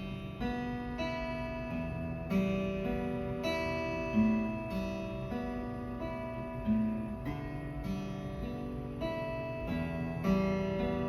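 Acoustic guitar playing a slow passage of picked chord notes that ring into one another, with a few notes struck harder than the rest.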